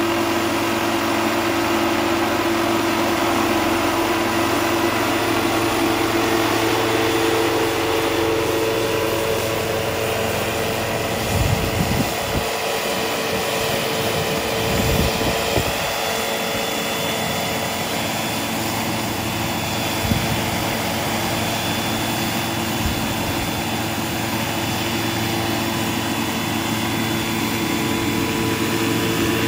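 Large-scale radio-controlled Agusta A109K2 model helicopter hovering and descending to land, its motor and rotors making a steady whine. Low wind rumbles hit the microphone around 12 and 15 seconds in.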